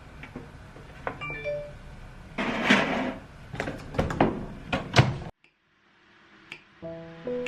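Indoor handling noises: scattered clicks, a brief rustle and two sharp knocks, then an abrupt cut to near silence, with soft plucked-note music starting near the end.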